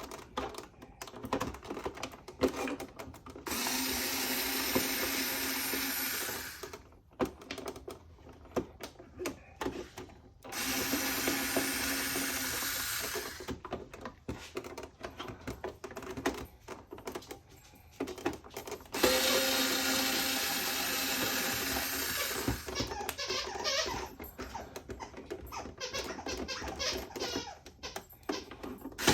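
Small metal tools clattering and clicking as they are handled, broken three times by a steady whirring noise that lasts about three seconds each time.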